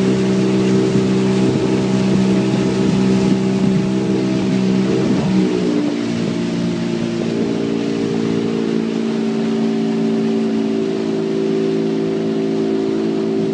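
Small boat's outboard motor running steadily under way; its note shifts about halfway through, then holds steady again.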